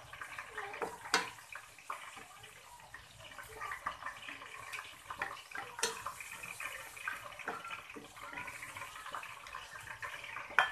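Chopped onion, garlic and ginger sizzling in oil in a stainless steel frying pan, stirred with a wooden spatula that scrapes and taps against the pan. Two sharper knocks come about a second in and near six seconds.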